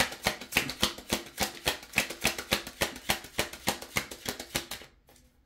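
Deck of oracle cards being shuffled by hand: a quick, even run of card slaps, about six a second, stopping shortly before the end.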